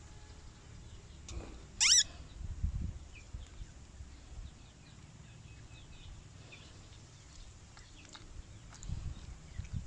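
Baby monkey giving one short, high squeal that rises in pitch about two seconds in. Low handling thuds follow, and more come near the end.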